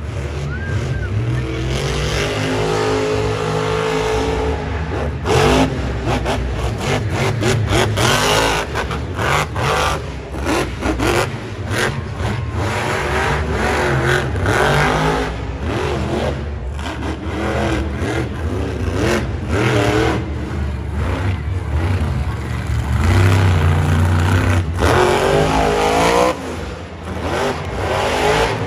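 Son-Uva Digger monster truck's supercharged big-block V8 revving hard, the pitch climbing and falling over and over with sharp throttle blips and cut-offs as it spins and wheelies in the dirt.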